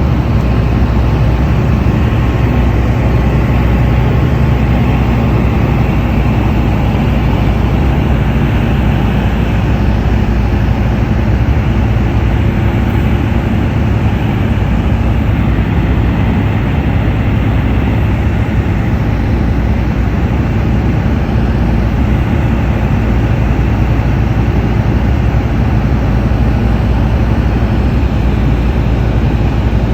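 Engine and propeller of a Tecnam light aircraft in flight, a loud steady drone that holds the same level throughout.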